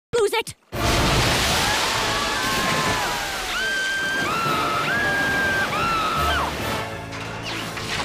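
Cartoon water ride: rushing, splashing water with a group of children screaming over it in long held screams that waver up and down.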